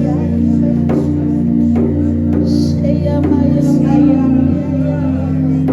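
Worship music from a band: sustained held chords over a bass line, with a steady drum beat.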